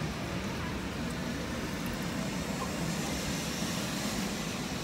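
Steady outdoor rain and wind noise: an even hiss with a low rumble of wind buffeting the microphone.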